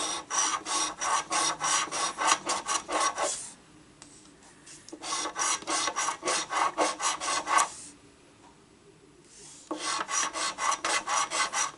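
A coin scratching the coating off a paper lottery scratch-off ticket in quick strokes, about four a second, in three bouts with short pauses between them.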